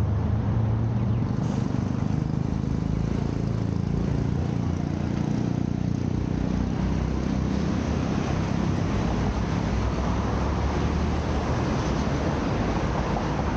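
Street traffic: motor vehicle engines running with a steady low rumble, and a rushing noise of passing traffic that builds in the second half.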